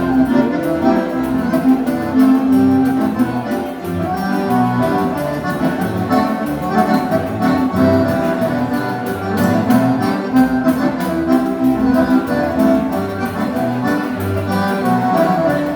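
Accordion-led gaúcho dance-band music: an instrumental passage with a moving bass line and a steady beat.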